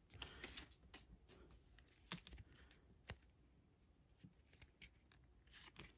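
Near silence broken by faint, scattered clicks and taps of a stack of trading cards being handled and flipped through by hand, the sharpest tick about three seconds in.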